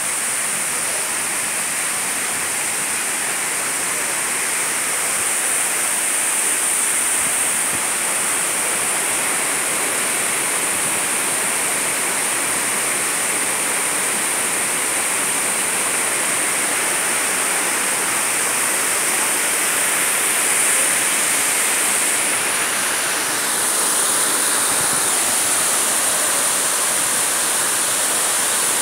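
Waterfall water rushing steadily, cascading over boulders into a rock pool.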